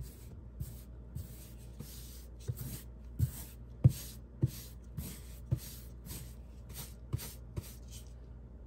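Angled paintbrush brushing paint onto a wall in repeated strokes, each a scratchy swish of the bristles with a soft knock, a little under two a second, over a faint steady hum.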